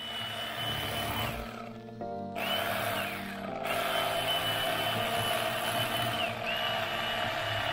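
Electric fillet knife running and cutting into a large black crappie behind the gill. Its motor whine dips and recovers as the blade meets the fish, and it stops briefly about two seconds in before starting again.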